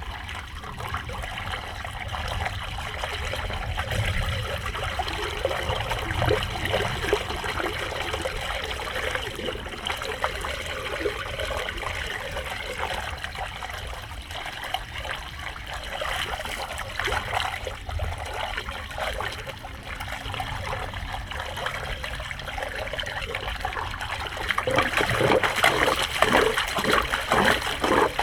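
Floodwater trickling and running into a street storm drain, with louder splashing over the last few seconds.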